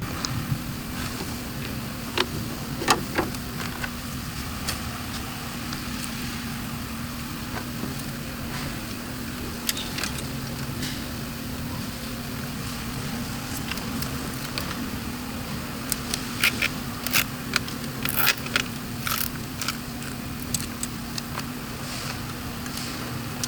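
A steady hum under a noisy background, with scattered sharp clicks and metallic taps. A short cluster of taps comes about two-thirds of the way through.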